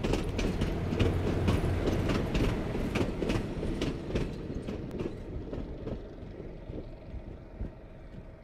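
A train rolling along, its wheels clicking over rail joints above a low rumble. The clicks stop about five seconds in, and the sound then fades away.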